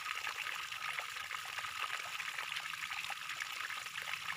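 Soft, steady trickling water with many small quick splashing ticks.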